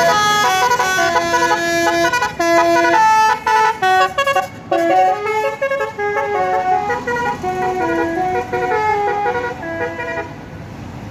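Bus's basuri telolet horn, a multi-trumpet musical horn, playing a long melody of separate stepped notes. The melody drops away near the end.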